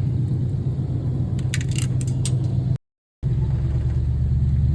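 A few sharp metallic clinks of tools and hardware knocking together, about one and a half to two and a half seconds in, over a steady low rumble. The sound drops out completely for about half a second around three seconds in.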